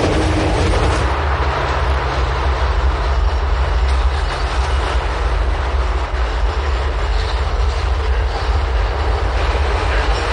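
Vintage steam train running at a sedate speed: a steady, loud rumble and rattle of the steam locomotive and its coaches on the track.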